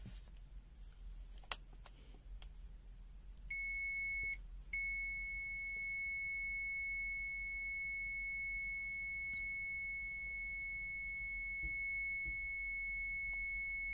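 ZOYI ZT-Y2 multimeter's continuity buzzer sounding a steady high-pitched beep, signalling continuity across the test probes. A few faint clicks come first; the beep starts about three and a half seconds in, drops out for a moment, then holds unbroken.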